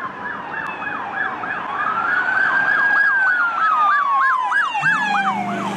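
Police car sirens: a rapid yelp, about five sweeps a second, overlapping a slow wail that falls, rises and falls again.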